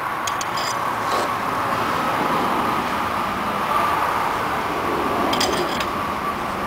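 A few light metal clicks and clinks as a motorcycle's rear-axle chain adjuster bolt and nut are handled, in two small clusters near the start and near the end. Under them runs a steady whirring background noise with a faint hum.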